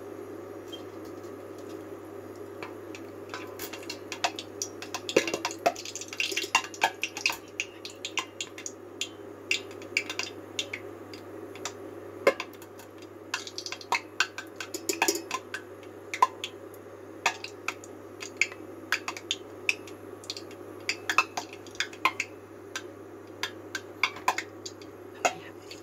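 Butchi (sweet potato and glutinous rice balls) deep-frying in hot oil: a steady sizzle with irregular crackling pops and clicks, mixed with a wire strainer clinking and scraping against the pot. The pops and clicks come thicker after the first few seconds.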